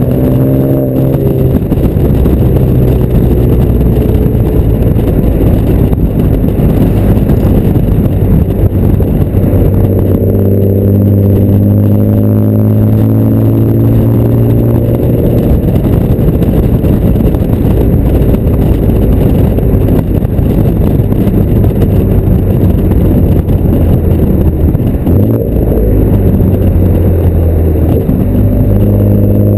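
Exhaust note of a 2010 Ford Taurus SHO's twin-turbo 3.5-litre V6 through a custom cat-back exhaust, heard at the tailpipe while driving. The engine pitch rises and falls several times, near the start, about ten to thirteen seconds in, and again near the end, with wind rushing over the microphone.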